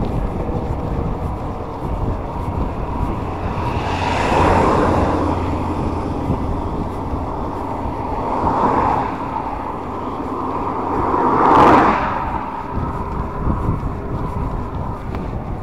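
Wind rushing over the microphone of a camera on a moving bicycle, with a steady low rumble. Passing road vehicles swell and fade three times, about four and a half, nine and twelve seconds in; the last is the loudest.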